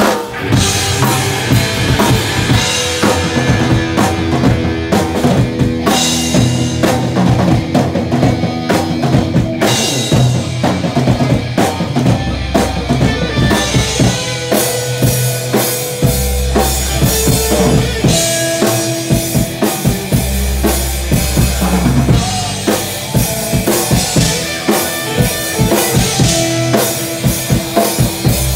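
Live band playing an instrumental passage: a drum kit keeps a steady beat under electric guitar chords and low sustained bass notes that change every couple of seconds.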